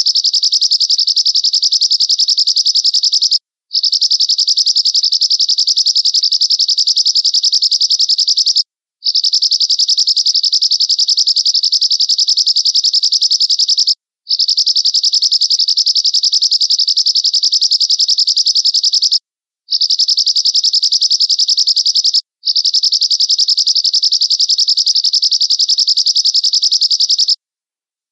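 A small finch singing long, rapid, high-pitched trills, six in a row, each a few seconds long with short pauses between.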